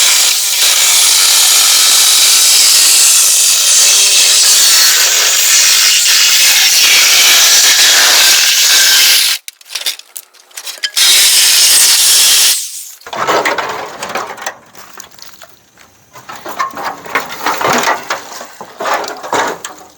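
Power cutting tool running and cutting through the car body's sheet-metal floor pan in a long loud pass of about nine seconds, stopping briefly, then cutting again for a second or so. After that come irregular scrapes and knocks of metal being handled.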